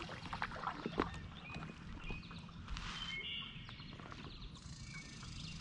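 Kayak paddling on a river: the paddle dipping and dripping, with a brief splash about three seconds in and a few light knocks. Short bird chirps sound several times.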